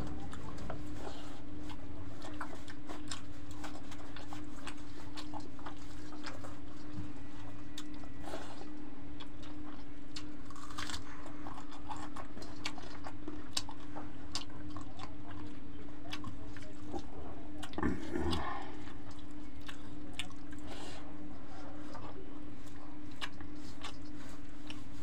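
Two people eating rice and egg curry by hand from steel plates: scattered small clicks and mouth sounds of chewing, with fingers working the rice against the metal plates, and one louder knock about 18 seconds in. A steady low hum runs underneath.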